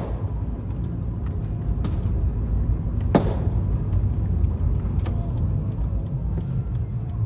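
Firecrackers going off: one sharp bang about three seconds in and a few fainter pops, over a steady low rumble.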